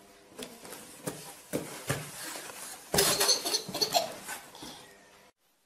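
Cardboard box knocked and rustled by a baby's hands and a cat moving inside it: a run of thumps and scrapes, loudest about three seconds in, cutting off shortly before the end.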